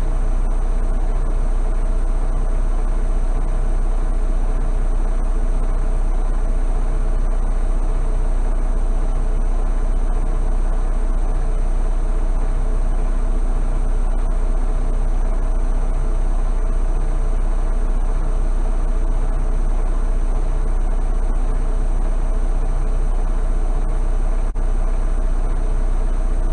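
Semi truck's diesel engine idling steadily, heard from inside the cab.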